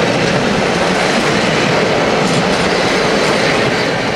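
Vintage passenger carriages rolling past close by: a steady, loud rumble and rattle of steel wheels and bogies running on the rails.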